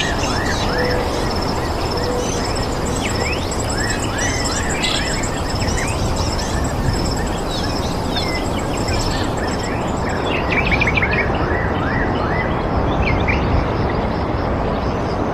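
Wild birds chirping with many short rising and falling calls and a fast, high pulsing trill, over a steady, even rushing noise.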